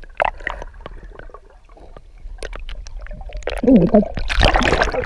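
Water heard from a camera held underwater: gurgling and small clicks, building about three and a half seconds in into a loud churning rush of water as a large wels catfish, stroked by a hand, stirs and pushes off.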